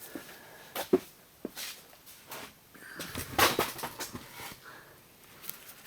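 Handling noise from plastic oil containers and a measuring cup during an engine oil refill: a few sharp clicks and knocks, then a louder rustling, pouring-like stretch about three seconds in.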